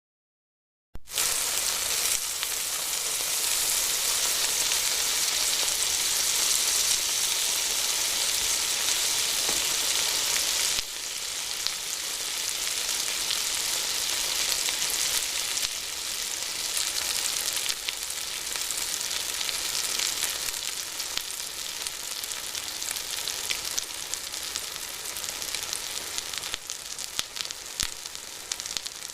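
Food frying in hot oil in a frying pan: a steady high sizzle with scattered crackling pops. It starts about a second in, becomes a little quieter at about eleven seconds, and fades toward the end.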